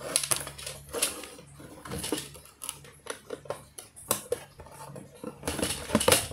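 A small screwdriver backing screws out through a corrugated cardboard toy box while the box is handled, giving irregular scrapes, ticks and cardboard rustles, with the loudest burst of handling near the end.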